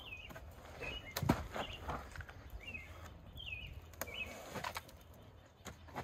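A small songbird chirping, short curving calls repeated about every second, over knocks and scrapes as a heavy hollow log is rocked and walked along the ground; the loudest is a thud a little over a second in.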